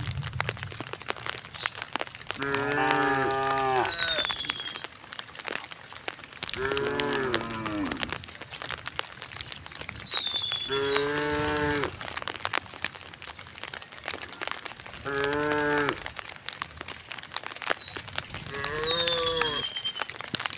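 Cows mooing: five long moos, each about one and a half to two seconds, one every few seconds, some dropping in pitch at the end.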